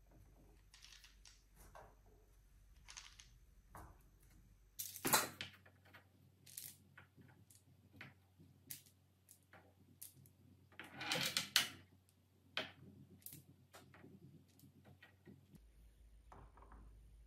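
Balls rolling down a wooden marble run, with scattered clicks and knocks as they strike the wooden track and each other. There is a louder clatter about five seconds in and a longer burst of rapid clattering around eleven seconds.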